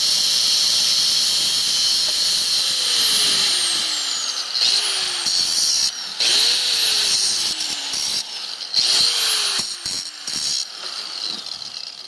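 DeWalt angle grinder with a cutoff wheel cutting through a splined shaft, a loud high whine. For about the first four seconds it cuts steadily, its pitch sagging. Then it is triggered in about three short bursts, each spinning up and winding down.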